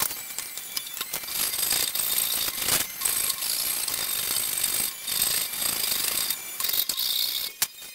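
Hand chisel scraping and picking at a sawn wooden block, a string of irregular sharp taps and scratchy scrapes.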